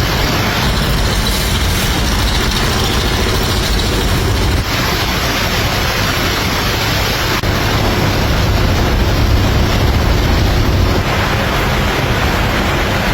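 Loud, steady machinery noise with no clear rhythm, like an engine running close by; its character changes abruptly about four and a half and eleven seconds in.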